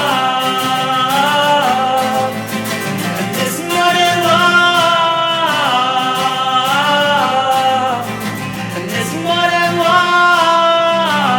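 A male voice singing long held notes that slide between pitches, over a strummed acoustic guitar.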